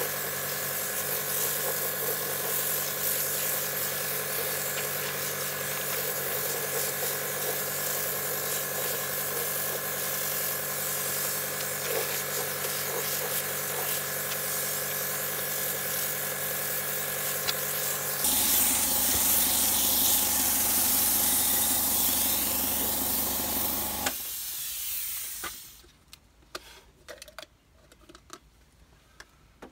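A gravity-feed air spray gun hissing steadily as it sprays paint onto a steel wheel, with the air compressor's motor running under it. About 18 seconds in the sound changes and grows a little louder. A few seconds later it all stops, leaving only a few light knocks.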